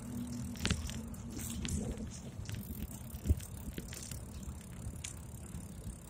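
Riding rumble and rattling from a bike rolling over asphalt, heard through a handlebar-mounted phone, with scattered clicks. A steady hum stops about two seconds in, and a single sharp knock comes about three seconds in.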